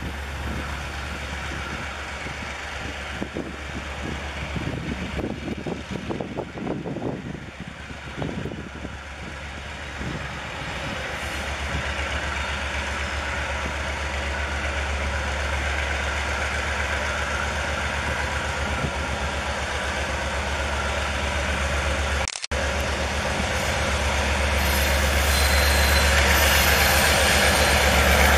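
Diesel-electric locomotive R154's engine running under power as it pulls a freight train away, with a steady low hum that grows louder as the locomotive comes closer. The sound cuts out for an instant about 22 seconds in.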